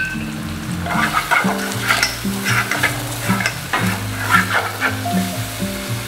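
Ground beef and oil frying in pots on the stove, sizzling, with a wooden spoon stirring and scraping in short, irregular strokes. Background music with held notes plays underneath.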